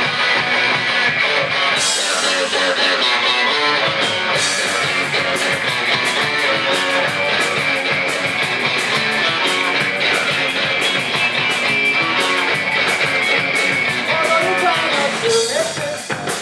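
Rock band playing an instrumental passage with electric guitars and drums; the cymbals get busier about four seconds in.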